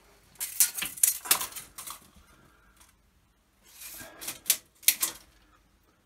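Steel tape measure being handled and reeled in, clicking and rattling in two bursts of a second or so, the second ending in a couple of sharp snaps.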